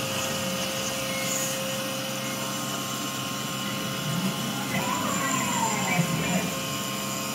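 Langmuir Systems MR-1 CNC mill's spindle running a 4 mm four-flute end mill at 8,000 rpm, slotting full width through CPM 154 stainless steel under coolant spray: a steady cutting whine with a held tone over the spindle and coolant noise. A brief falling squeal comes about five seconds in.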